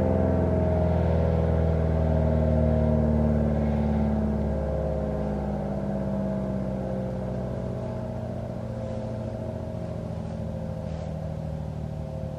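ACA Allertor outdoor warning siren winding down at the end of its alert signal, its tone falling slowly in pitch and fading.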